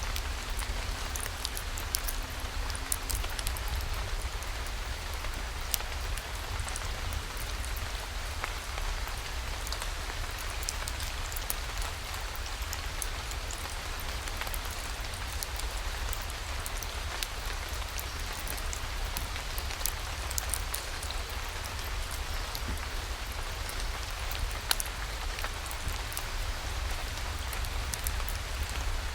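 Steady rain falling, with many scattered sharp drop ticks and a constant low rumble underneath.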